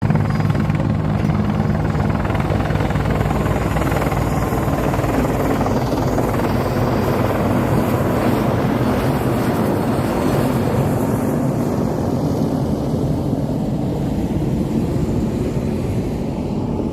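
A large engine running loudly and steadily with a deep, even hum; its higher hiss fades over the second half.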